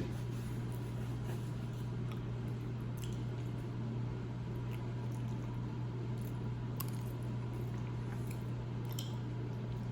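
A person eating spaghetti close to the microphone: soft wet chewing and squishing, with a few faint clicks, over a steady low hum.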